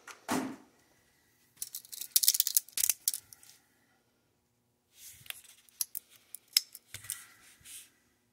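Felt-tip permanent marker scratching and squeaking on a metal AR-15 bolt carrier and bolt head in two spells of writing, about two seconds in and again from about five seconds in, with small clicks as the parts are handled.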